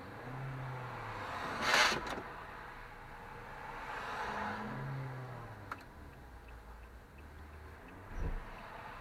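Toyota Corolla's CVT drivetrain while driving: a low hum that swells and fades twice, a short harsh grinding burst about two seconds in, and a low thump near the end. These are the sounds of a faulty CVT that slips out of drive and grinds and jerks as it re-engages.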